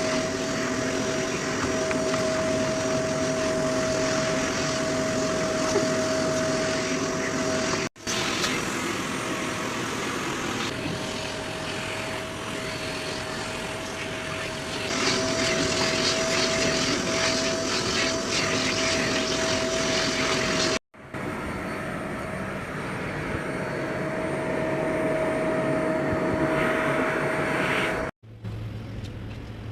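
Steady machine whoosh with a constant mid-pitched whine, broken by abrupt cuts about 8, 21 and 28 seconds in, where the sound drops out and resumes slightly changed.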